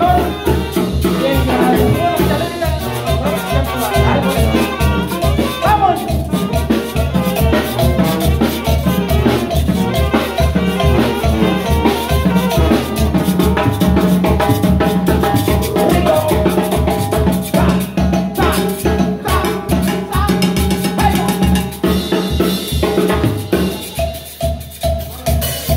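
A live banda plays loudly, a Mexican brass band with sousaphone bass and drum kit keeping a steady beat under the horns, in an instrumental passage without singing.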